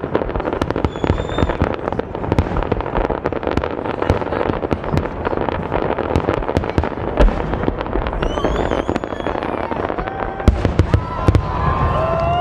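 Fireworks going off in a dense barrage: a continuous rapid run of bangs and crackles, with a few gliding whistles near the end.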